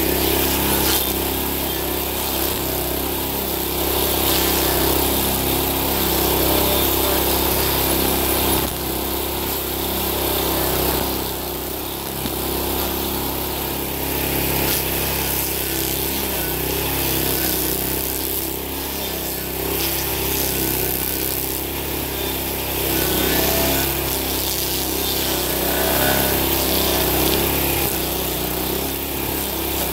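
Homemade stump grinder powered by a Honda GX390 single-cylinder four-stroke engine, running steadily under load as its Blueshark M1 cutting wheel grinds into a stump. The engine note runs under a steady hiss of wood being chewed and chips thrown.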